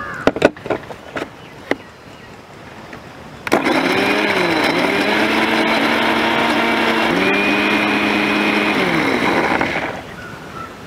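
A few knocks as the jar is handled on its base, then an electric mixer grinder starts about three and a half seconds in and runs loudly, grinding ripe chillies, garlic, lemon juice and oil into a wet paste. The motor's pitch dips and recovers twice, then it winds down near the end.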